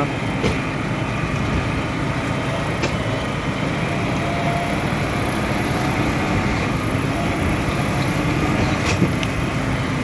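New Holland T3.75 tractor engine running steadily as the tractor drives down a steep, muddy track. A few sharp knocks cut in, the loudest about nine seconds in.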